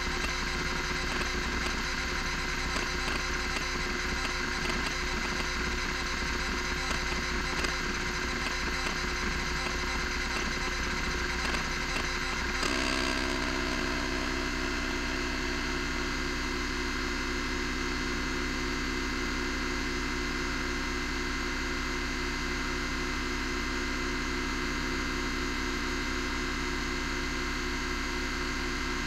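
Miniscribe 3425 20 MB MFM hard drive seeking under a benchmark: its stepper-motor head actuator chatters with rapid irregular ticks over the loud, steady spindle hum during random seeks. About twelve seconds in the sound changes abruptly to a steady buzz as the heads step track to track.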